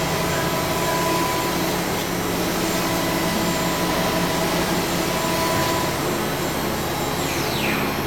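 Fryer 5X-120 five-axis CNC machining center running, a steady whirring hiss with faint steady tones. A falling whine comes in near the end.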